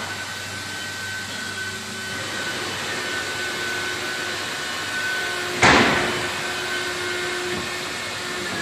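Three-spindle ATC CNC wood router running: a steady mechanical whir with a thin high whine. About two-thirds of the way in comes a sudden loud hiss that dies away within half a second.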